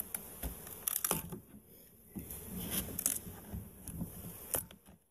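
Handling noise: rustling and scraping as the bee package is worked on, with a few short sharp clicks.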